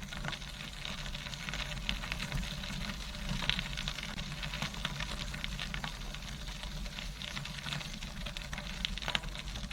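Tandem bicycle tyres rolling over a gravel path: a steady crackling crunch with many small irregular clicks over a low rumble.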